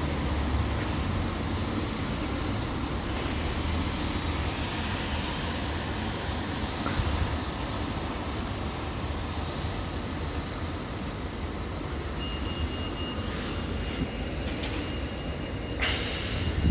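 Steady road traffic on a wet street, with a low engine hum strongest in the first second or so.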